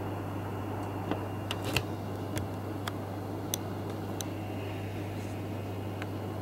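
Steady low hum and room noise, with a few scattered light clicks spread through it.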